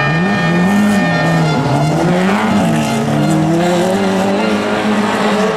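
Race car engines on a dirt track, revving up and falling back again and again as the cars accelerate, lift and shift through the corners.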